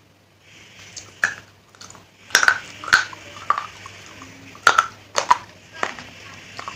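Sharp, loud crunches of teeth biting and chewing hard pieces of clay pot, a string of irregular cracks close to the mic with softer mouth noise between.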